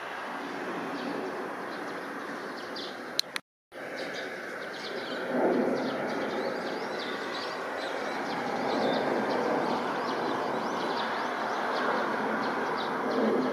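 Jet engines of a climbing Embraer 170 regional airliner, a steady distant roar that swells a little about five seconds in. Birds chirp repeatedly over it. The sound drops out for a moment, after a click, a few seconds in.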